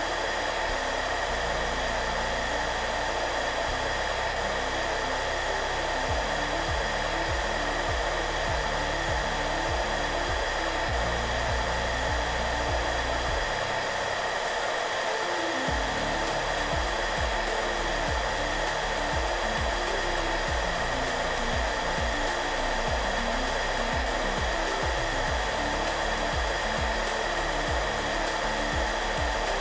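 Hairdryer running steadily, an even rushing blow with a constant whine, over soft background music whose low notes drop out briefly about halfway through.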